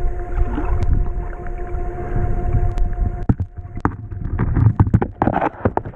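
Underwater sound of a river: low rumbling flow of current over the stones with a steady hum that stops about three and a half seconds in, then a quick run of clicks and knocks.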